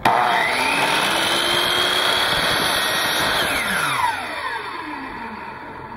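Chop saw switched on: the motor spins up with a rising whine, runs steadily for about three seconds, then winds down with falling pitch once the trigger is released. The saw is being used to cut PVC pipe.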